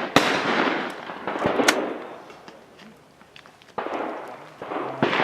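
Gunshots at an outdoor shooting range: several sharp reports about one to two seconds apart, each trailing off in a long echo.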